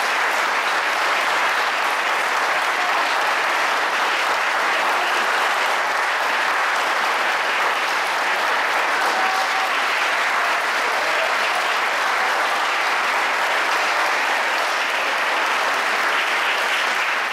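Audience applauding steadily, a sustained round of clapping that holds an even level throughout.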